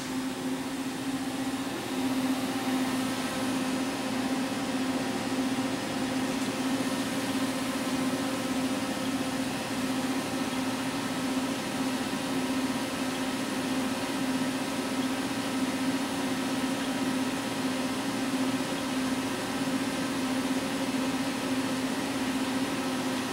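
Steady hum of a powered-up Mitsubishi FX10 wire EDM machine: a constant low electrical tone over fan-like hiss, with no change as the control keys are pressed.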